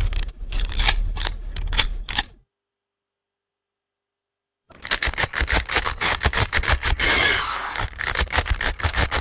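Camera shutter and mechanism clicking: a quick run of sharp clicks for about two seconds, then after two seconds of silence a longer, denser run of rapid mechanical clicking and clatter.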